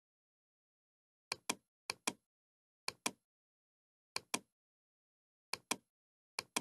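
Computer mouse clicks: six in all, each a quick double tick of button press and release, spaced roughly a second apart, with dead silence between them.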